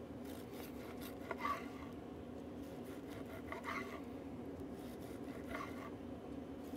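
Long knife slicing through a seared beef fillet on a wooden cutting board: four faint slicing strokes a second or so apart.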